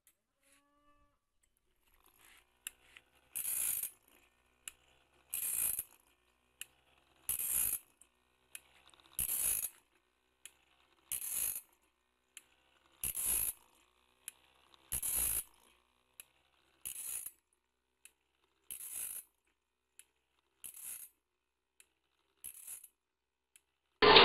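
Automatic bandsaw blade sharpener grinding the teeth one at a time: a short hiss of the abrasive wheel on each tooth, about every two seconds, with a single click from the feed mechanism between grinds. It starts about three seconds in.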